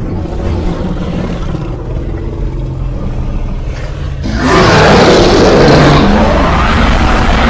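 Creature sound effect for a dinosaur character: a steady low rumbling growl, then a much louder roar breaks in about four seconds in.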